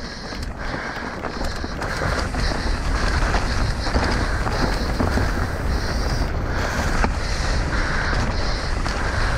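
Wind buffeting the microphone over the rattle of mountain bike tyres and frame on a rocky trail during a fast descent. A high buzz from the rear freehub comes and goes in short patches as the rider coasts between pedal strokes.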